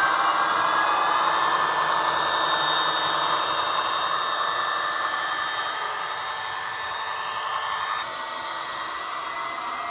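Soundtraxx Econami decoder playing a Class 66 diesel engine sound through the on-board speaker of a Bachmann OO-gauge model locomotive, over the whir of the model running along the track. The sound fades slowly as the locomotive moves away, dropping a little about eight seconds in.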